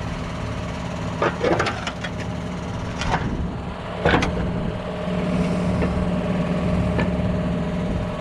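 Tractor engine idling steadily, with a few sharp metallic knocks and clinks over it, the loudest about four seconds in.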